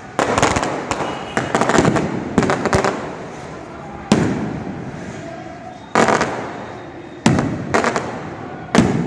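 Aerial firecrackers bursting overhead: about ten sharp bangs at irregular intervals, some in quick clusters, each followed by a rolling echo that dies away.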